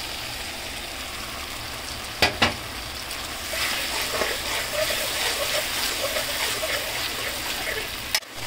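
Garlic, peppers and onion sizzling in a metal pan with barbecue sauce just poured over them. Two sharp clicks come a little over two seconds in, then a metal spatula stirs and scrapes through the sauce.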